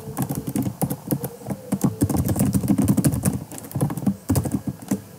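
Computer keyboard typing: a quick, uneven run of keystrokes as a line of code is entered.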